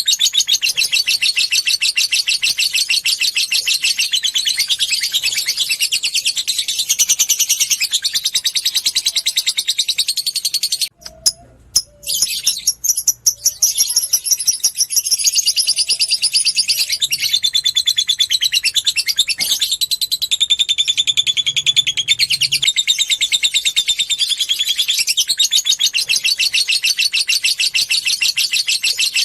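Lovebird chattering in a long, very rapid, high-pitched trill of tightly packed notes (the 'ngekek' and 'ngetik' chatter). It breaks off briefly about eleven seconds in, then resumes.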